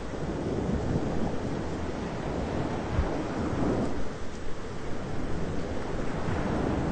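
Thunderstorm: continuous rain and wind noise with low thunder rumbling, swelling about three to four seconds in.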